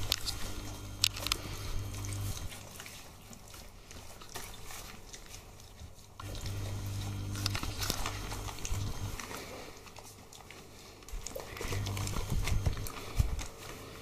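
Four-week-old Chesapeake Bay retriever puppies eating together from one bowl: a run of wet smacking, chewing and clicking sounds, over a low hum that comes and goes.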